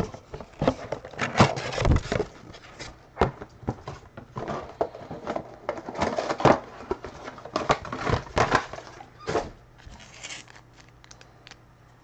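Plastic wrap and cardboard packaging of a trading-card box crinkling and rustling as it is unwrapped and opened by hand. Irregular handling noise with a few sharp clicks, quieter near the end.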